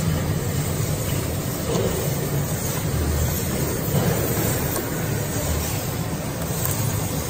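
Steady low machine rumble of a running cutting machine in the workshop, even throughout with no distinct knocks.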